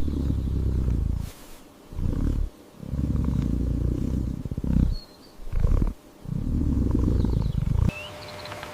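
Cat purring in five low, rumbling bursts of half a second to two seconds each, with short breaks between them.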